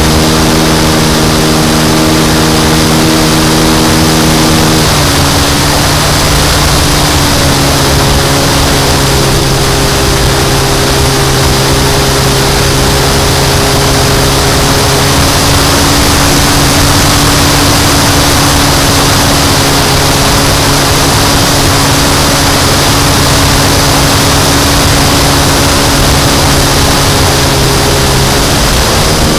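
Model airplane engine and propeller heard up close from an onboard camera, with a rush of wind noise. The engine runs steadily, is throttled back to a lower steady note about five seconds in, and is opened up again near the end.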